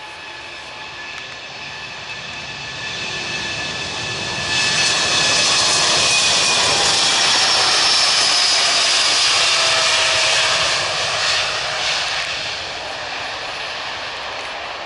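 Airbus A330 twin-engine jet airliner taking off, its engines at takeoff power: steady jet noise with a high whine that grows louder for about five seconds, holds at its loudest as the aircraft passes, then eases off and drops in pitch as it lifts off and climbs away.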